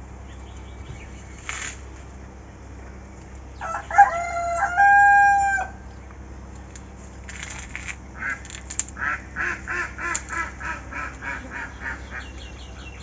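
A rooster crowing once, about four seconds in, a long call that holds its pitch at the end. From about eight seconds in, a run of short repeated calls, about three a second.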